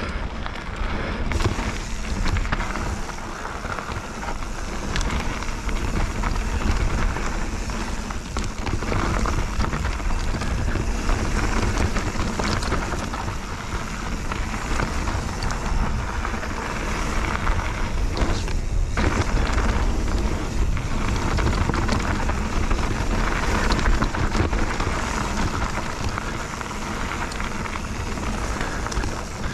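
Bird Aeris 145 full-suspension mountain bike riding down a trail: a steady rush of tyre noise with constant small rattles and clicks from the bike over the ground, under a low wind rumble on the helmet-mounted GoPro's microphone.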